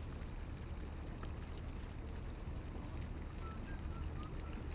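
Low, steady rumble of wind buffeting the microphone, with a few faint short high chirps near the end.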